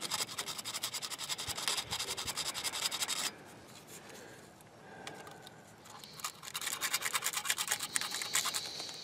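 Emery paper being rubbed quickly back and forth between the breaker-point contacts of an old welder engine's distributor, cleaning points that are burnt and fouled. Two bouts of fast scratchy strokes, the first about three seconds long, the second starting about six seconds in.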